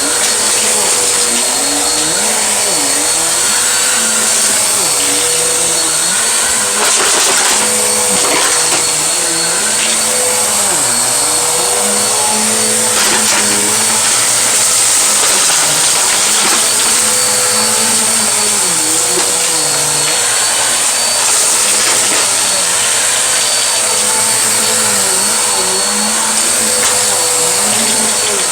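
Vacuum cleaner running continuously, sucking up a spilled mess of beans, rice, pennies, glitter and dirt. It gives a steady high whine and hiss, while its lower hum dips and recovers every second or two as the suction load changes, with a few faint clicks.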